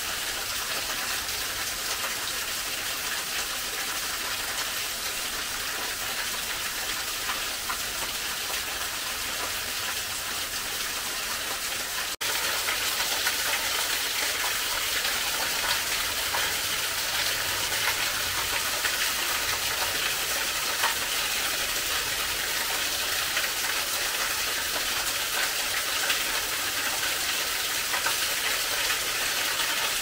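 Small waterfall: a thin stream pouring off a rock ledge and splashing onto rocks, making a steady hiss of falling water. About twelve seconds in the sound breaks off for an instant and comes back a little louder and closer.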